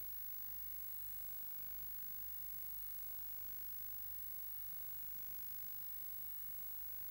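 Steady hiss with a low hum and faint high-pitched whines, unchanging throughout: the recording's own electronic noise, with no animal or other distinct sound.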